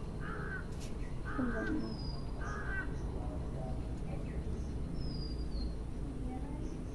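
A crow cawing three times, harsh calls about a second apart, with faint thin bird chirps later on.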